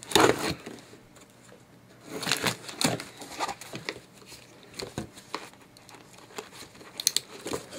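Pocket knife blade slicing through packing tape on a cardboard box, a series of short scraping, tearing strokes with rustling of the cardboard, the loudest right at the start.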